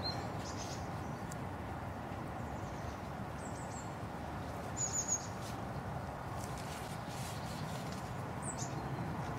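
Small birds giving a few brief high chirps, three times, the last one falling in pitch near the end, over a steady outdoor background rush.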